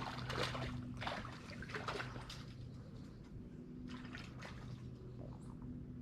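Shallow lake water splashing and sloshing in short bursts, several in the first two and a half seconds and again around four seconds, as someone moves through it while wade fishing. A faint steady low hum runs underneath.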